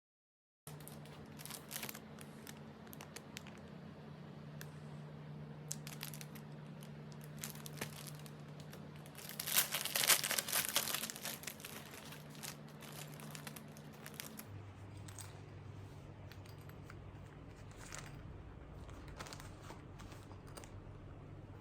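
Crinkling and rustling of something being handled, with scattered light clicks, over a faint steady hum. The loudest rustle comes about ten seconds in.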